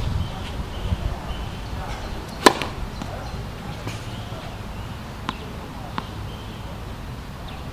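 Sharp tennis-ball impacts on an outdoor hard court: one loud pop about two and a half seconds in, then lighter ball bounces on the court a little before the end. A low wind rumble on the microphone runs underneath, strongest at the start.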